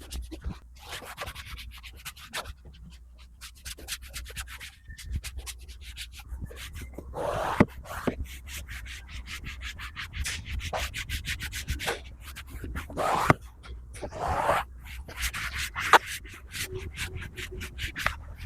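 Fast, repeated scrubbing strokes, a hand working a brush or cloth over car interior surfaces, with a few louder, longer strokes in the middle and later on.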